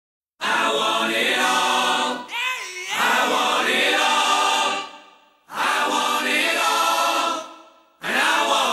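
Background music: a choir singing long held chords in phrases about two seconds long, with short gaps between them, starting about half a second in.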